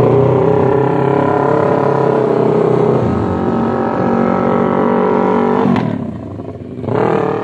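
Racing motorcycle engines running at steady revs as the bikes pass along the pit lane; the note eases off just before six seconds, and another bike's engine swells briefly near the end.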